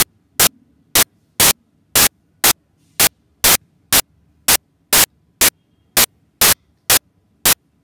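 Short, sharp bursts of static noise repeating evenly about twice a second, with near silence between them.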